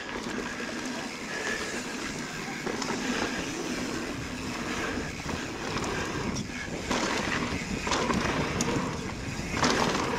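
Mountain bike rolling fast down a dry dirt trail: a steady rush of tyre noise on dirt and wind on the microphone, with the bike rattling and knocking over bumps, the knocks louder and more frequent in the second half.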